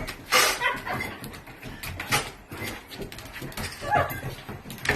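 A dog whimpering and yipping in short cries, with a couple of brief scuffling noises about half a second and two seconds in.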